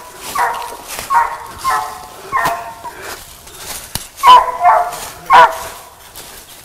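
A squirrel dog barking treed at a tree, a string of short barks with the three loudest coming in the second half, signalling that a squirrel is up the tree.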